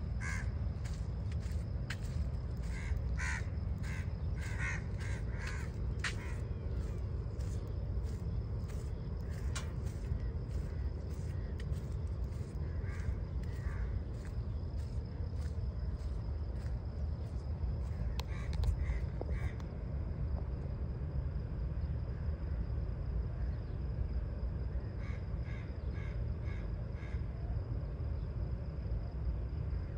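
Ducks quacking in bouts of short, harsh, repeated calls, thickest in the first few seconds and returning in shorter bursts later, over a steady low rumble.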